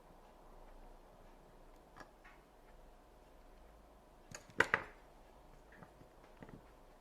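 A few light clicks and knocks of things being handled, with a quick cluster of louder clicks about four and a half seconds in, over a faint steady hum.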